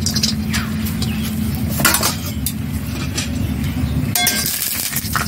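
Sharp metallic clinks in a steel karai as peanuts are put into hot oil to fry, a few separate strikes, the clearest about two seconds in and near the end. A steady low hum runs underneath.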